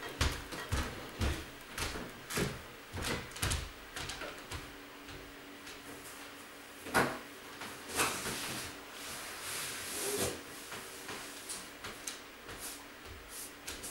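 Storage boxes being handled and shifted: irregular knocks, clunks and scrapes, the sharpest two about 7 and 8 seconds in.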